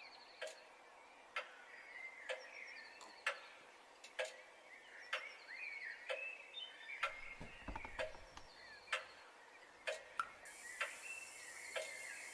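Clock ticking steadily, about one tick a second, over faint high chirping, as a quiet intro to the song.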